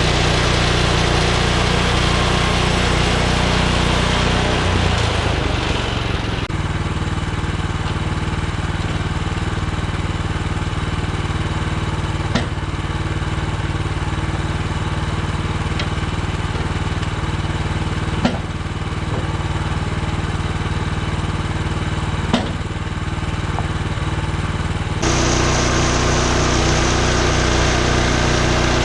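Portable bandsaw sawmill's gas engine running at high speed, dropping to a lower idle about six seconds in. Four sharp knocks sound while it idles, and the engine speeds back up near the end.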